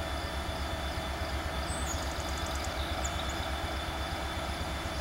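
CSX diesel locomotive approaching at the head of a double-stack freight train: a steady low engine rumble with a throbbing bass and the train's running noise.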